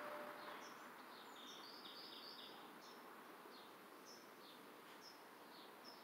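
Near silence, with faint, distant bird chirps repeating through the first part.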